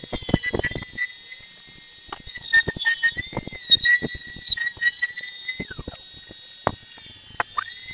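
High-pitched power-tool whine that holds steady and dips slightly in pitch now and then, over many sharp knocks and clicks of wood being worked.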